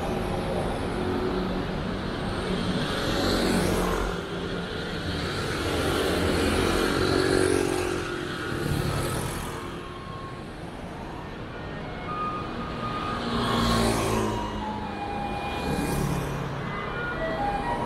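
City street traffic: cars and motor scooters drive past one after another, each swelling and fading over a steady traffic noise. In the last few seconds the faint notes of a tune begin, the music of an approaching garbage truck.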